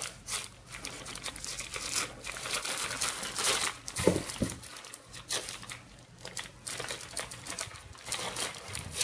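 White packaging crinkling and rustling in irregular bursts as a wrapped package is handled and unwrapped.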